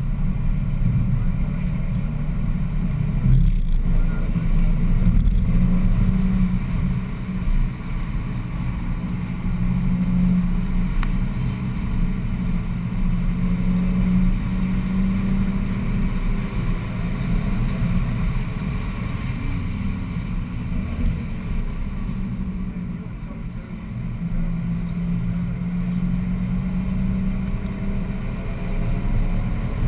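BMW 1M's twin-turbo straight-six driven hard on track, heard from inside the cabin along with road and wind noise. The engine note rises and falls through the gears, eases off briefly about two-thirds of the way through, then climbs again near the end.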